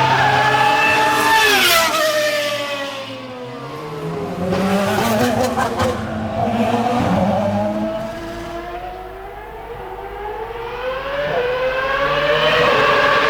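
Formula 1 car engine at high revs, dropping sharply about two seconds in, then running lower with short bursts of rising revs, and climbing steadily in pitch again near the end.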